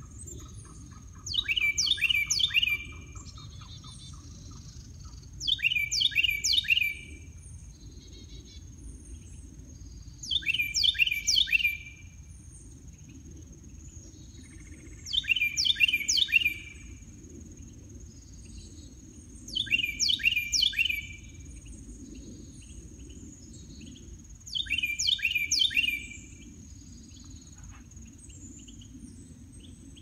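A small songbird singing the same short phrase of quick, repeated down-slurred notes about every five seconds, six times, the three-part song that gives it the name "cheeseburger bird". A steady thin high whine and a low rumble run underneath.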